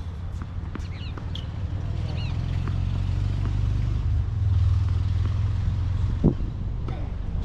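A steady low rumble, such as traffic or wind, swells and is loudest about halfway through. A bird gives a short chirp around one and two seconds in. About six seconds in there is a single sharp thud, typical of a tennis ball hitting the hard court.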